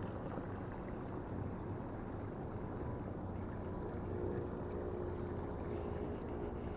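Steady low engine drone, with a higher steady hum joining about four seconds in.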